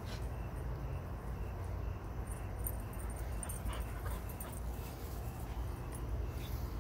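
A puppy's brief, faint whimper near the middle, over a steady low rumble of wind and handling noise from a phone carried at a run.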